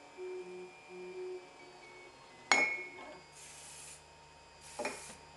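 3D printer's stepper motors giving two short steady tones, then a sharp clink that rings on, the loudest sound here. It is followed by two short hisses of aerosol hairspray being sprayed onto the glass print bed to make it tacky so the print will stick.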